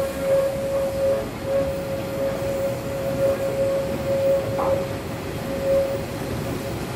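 Metre-gauge steam train running round a curve, heard from a carriage window: the carriages rumble under a steady high-pitched wheel squeal that breaks off briefly a few times.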